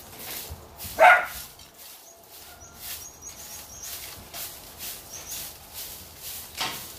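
A dog barks once, sharply, about a second in. Under it, a broom scrapes the dirt and straw floor of a chicken run in steady strokes, about two a second.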